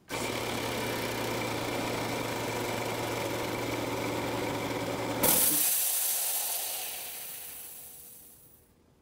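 Craftsman 5-horsepower 20-gallon air compressor running with a steady hum. About five seconds in it shuts off at full tank pressure, and a sudden loud hiss of venting air follows and fades away over the next few seconds.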